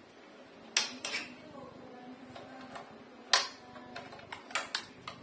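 Sharp plastic clicks and knocks of hands working a clamp meter and its test leads, the lead plugs being pushed into the meter's jacks: about seven clicks, the loudest about a third of the way in and a quick cluster near the end, over a faint steady hum.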